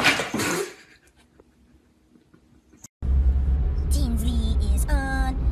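A sudden clatter lasting under a second as a cat jumps up against the window and its roller blinds. About three seconds in, it switches to a car interior's steady low engine rumble, with two short voice calls over it.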